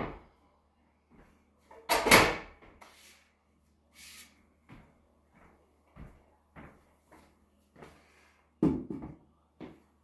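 A sharp knock, a louder clatter about two seconds in and another near the end, with a run of evenly paced footsteps on a hardwood floor in between.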